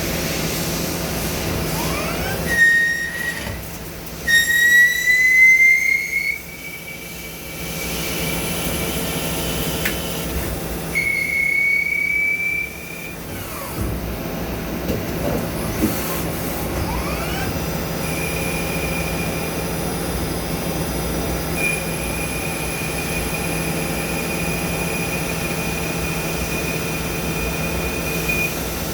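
Machine tool cutting beryllium copper: a steady motor hum under a high-pitched whine from the cut. The whine comes and goes, rises in pitch about five seconds in, and holds steady through the last third.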